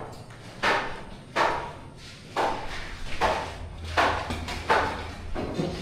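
A steady run of seven evenly spaced thuds, about one every three-quarters of a second, each fading quickly.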